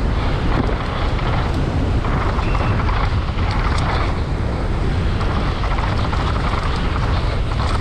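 Wind rushing over the camera microphone while a downhill mountain bike rolls fast over dry dirt, its tyres and frame giving a steady rumble and a few light rattles.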